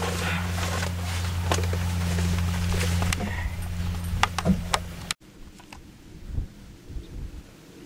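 Handheld camera noise: a steady low hum with scattered clicks and knocks as the camera is moved around. It cuts off suddenly about five seconds in, leaving a quieter stretch with a few faint low thumps.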